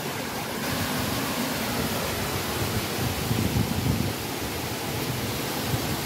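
Steady rushing of a waterfall and the stream below it, an even hiss of falling water.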